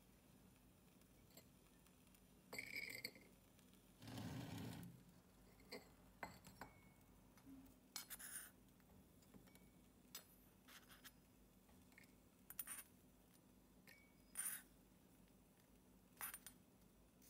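Tiny spatula scraping and clinking against a miniature wok as popcorn is scooped out: faint scattered clinks and scrapes, with one longer scrape about four seconds in.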